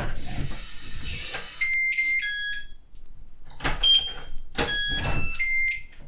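Yale Conexis L1 smart door lock sounding two quick runs of electronic beeps at different pitches, with a single beep between them, amid clicks and knocks from the handle and lock. The lock is powered up and responding, running off a homemade mains-fed UPS in place of its AA batteries.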